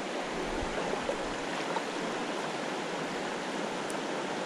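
Steady rush of river water running through rapids into a pool.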